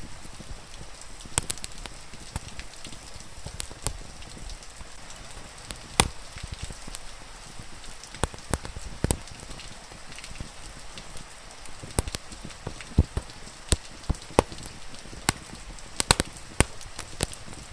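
Wood fire crackling, with sharp pops at irregular intervals, over the steady hiss of falling rain.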